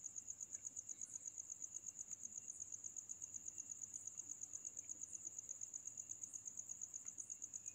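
A cricket chirping, a faint, high, evenly pulsing trill at about eight pulses a second that never changes.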